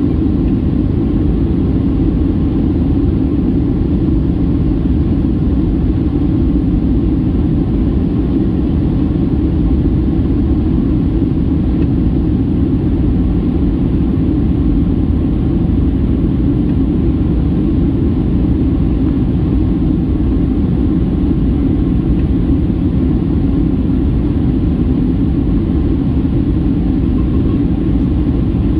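Steady in-cabin noise of a Boeing 737-800 in descent: its CFM56-7B jet engines and the airflow over the fuselage, an even low rumble with no change.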